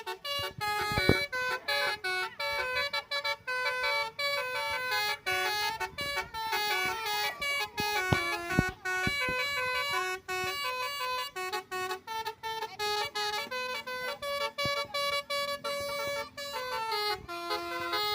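Bus telolet melody horn playing a quick tune: short pitched horn notes stepping up and down, each broken off by a brief gap.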